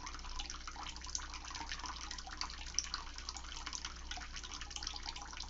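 Running water, a steady fine splashing patter that holds even throughout.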